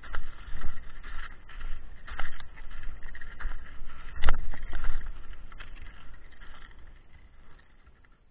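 Skis and ski boots moving through snow: irregular scraping and crunching with knocks over a low rumble. The loudest knock comes about four seconds in, and the sound dies away near the end.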